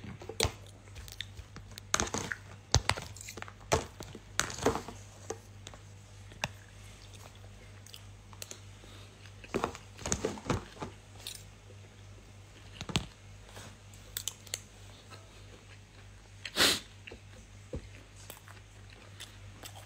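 A person chewing and crunching food close to a phone's microphone, with scattered small crunches and clicks and one louder short noise near the end.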